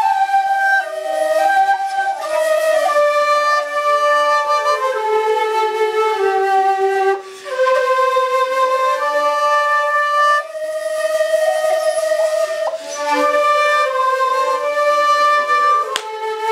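Shakuhachi, the Japanese end-blown bamboo flute, playing a slow melody of long held notes that step from pitch to pitch, with short breaks for breath about seven and ten seconds in.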